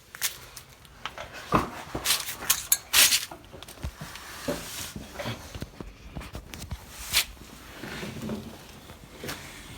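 Hand work with tools and metal parts: irregular clinks, knocks and scrapes, with a few sharper knocks scattered through.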